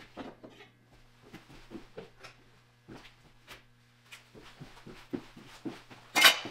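Footsteps on a shop floor, a short series of steps out, a pause, then steps back, followed near the end by a sharp clack as a square is set down on a workbench.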